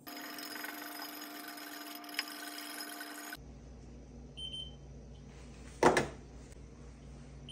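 A steady hiss with a low hum for about the first three seconds, then a handheld infrared thermometer gives one short high beep as it takes a reading. A sharp knock follows about a second and a half later; it is the loudest sound.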